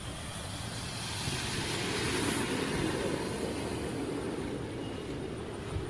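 Traffic on a rain-soaked street: a steady rush of noise that swells as a vehicle passes about two seconds in, then eases.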